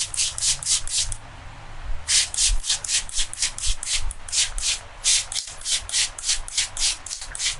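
Massage strokes: a barber's hands rubbing briskly back and forth, about five quick swishing strokes a second, with a brief pause a little over a second in.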